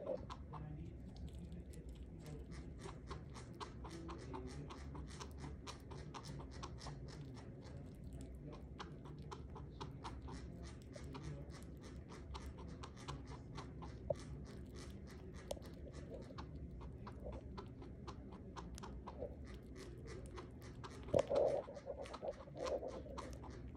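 Chinchilla chewing banana: a rapid, continuous run of small mouth clicks and smacks, with a brief louder burst near the end.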